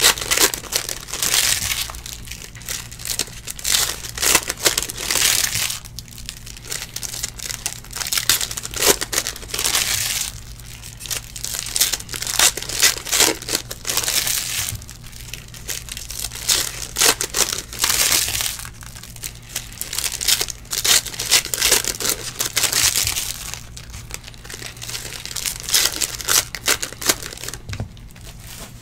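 Foil trading-card pack wrappers crinkling and tearing as packs are ripped open, in repeated bursts of a second or two with short pauses between.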